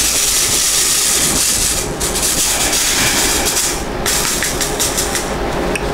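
Loose acrylic diamond-painting drills rattling in plastic as a bag and tray of them are handled: a rushing, hiss-like rattle in two spells of about two seconds each, then a few light clicks near the end.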